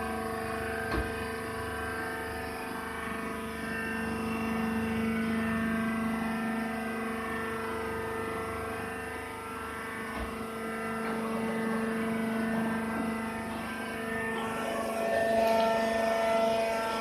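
Hydraulic baling press running: its electric motor and hydraulic pump give a steady, even hum, with a couple of short clicks.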